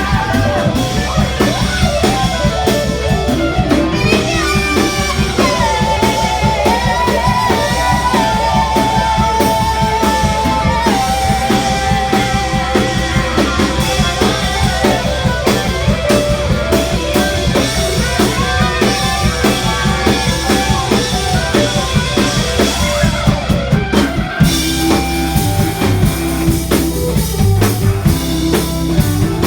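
Live rock band playing: a drum kit keeps a steady beat under electric guitar and bass, with a wavering lead melody line on top. About 24 seconds in the higher parts drop away, leaving drums and a repeating low bass figure.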